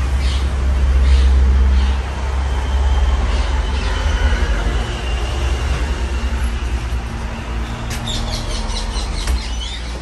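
Casablanca Spirit Of Saturn ceiling fan running with five blades fitted, a steady low rumble of motor and moving air with a rushing hiss above it. Faint high chirps come in near the end.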